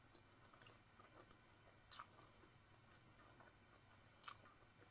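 Quiet mouth sounds of eating: fingers being licked clean, with two short wet smacks, one about two seconds in and one near the end.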